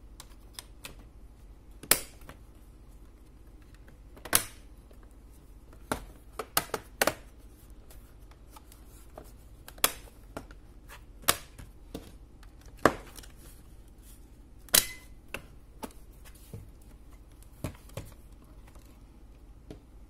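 Plastic bottom cover of a Dell Latitude laptop being pressed down into place, giving a dozen or so sharp, irregular clicks and snaps as its clips seat.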